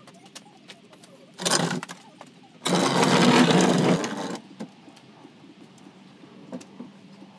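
Power drill running in two bursts, a short one about a second and a half in and a longer one of nearly two seconds, with light clicks and knocks in between.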